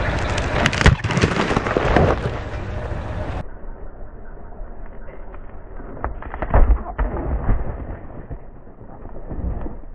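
A pumpkin being crushed under a slowly rolling car tyre: sharp cracks and pops as the rind splits, with a cluster of the loudest cracks about two-thirds in as the pumpkin gives way.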